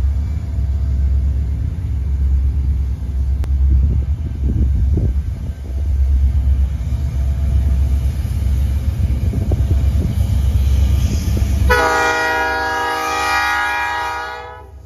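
Low rumble of an approaching diesel freight train. About twelve seconds in, the lead locomotive sounds one long air-horn blast of several notes together, lasting about three seconds, which is the loudest sound.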